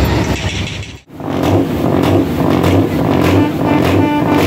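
Truck engines running and revving loudly, with an abrupt cut to silence about a second in before the engine noise resumes.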